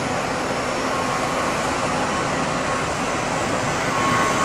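Airbus A320 jet engines running with a steady rushing noise as the airliner rolls down the runway for takeoff, a whine growing louder near the end.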